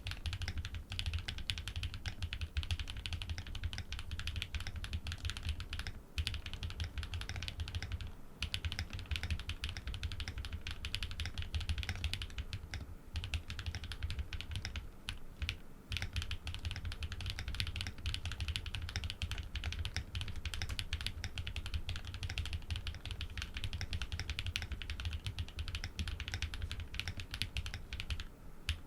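Continuous, dense typing on a Think 6.5 v2 custom mechanical keyboard fitted with Cow switches, PBT keycaps, an FR4 plate and full foam, broken by a few short pauses.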